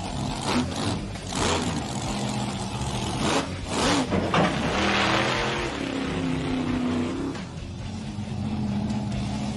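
Monster truck engine revving as the truck drives over and crushes a junk sedan, with several crunching impacts in the first four seconds. After that the engine runs on steadily at high revs.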